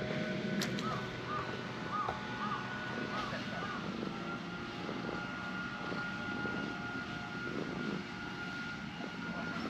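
A steady, distant engine drone: a thin high whine steps slightly lower in pitch about four seconds in over a low hum, and stops near the end. Short chirps come about twice a second during the first four seconds.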